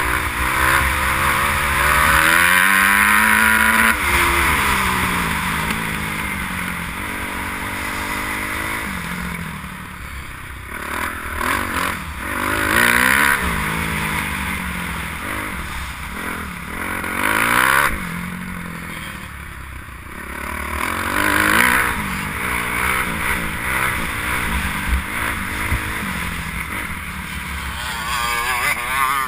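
Kawasaki KX250F motocross bike engine, revving up and falling off again and again as the rider accelerates, changes gear and shuts the throttle for turns, with wind noise on the microphone.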